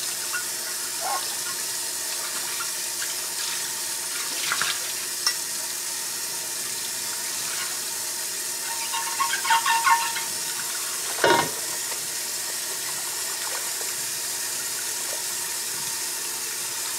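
Kitchen faucet running steadily into a stainless steel sink as a glass baking dish is rinsed under it, with a few clinks and knocks of the dish, the loudest about eleven seconds in.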